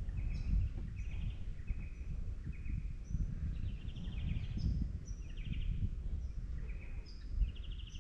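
Birds calling over and over, with short chirps, rattling trills and high whistles coming about every second. Under them is a low, uneven rumble.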